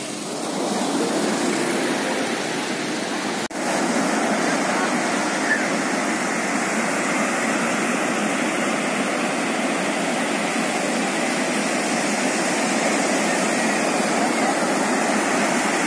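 Ocean surf breaking and washing up a sandy beach: a steady rushing noise, with a brief break about three and a half seconds in where the recording cuts.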